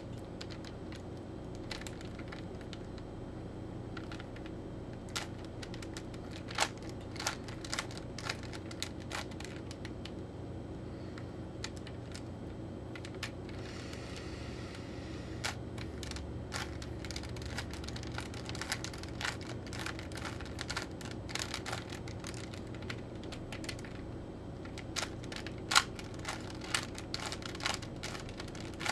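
Rubik's Cube being twisted by hand: irregular clicks and clacks as its plastic layers turn, over a steady low hum.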